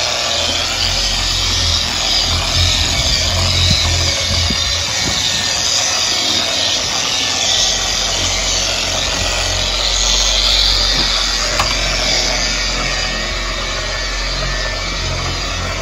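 A power tool running steadily: a loud, even hiss over a low, wavering hum.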